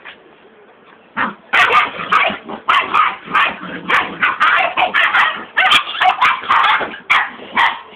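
Two puppies, a German shepherd and a cocker spaniel, fighting: a rapid, almost unbroken string of short barks and yaps. It starts about a second and a half in and stops just before the end.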